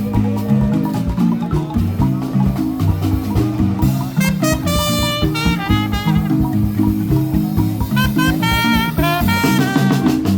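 Background music with a steady beat and busy low mallet-like notes. A higher melody line comes in briefly twice.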